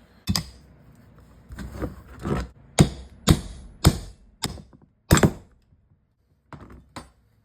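A padlock nailed to a wooden block takes about ten hard knocks at an uneven pace as it is worked loose from the wood, with two last knocks near the end.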